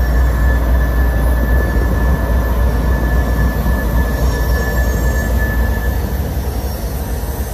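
CSX diesel-electric locomotive passing close by at low speed, its engine running with a deep rumble, with a thin steady high whine over it that stops about six seconds in.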